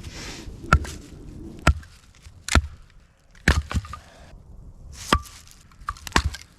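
Knife chopping into wood: about eight sharp knocks at irregular intervals, roughly one a second.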